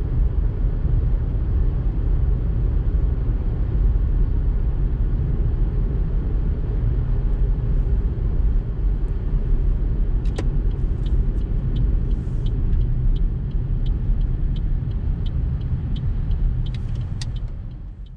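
Steady low rumble of road and engine noise heard from inside a moving car's cabin. From about ten seconds in, a light ticking repeats about twice a second, and the sound fades out at the end.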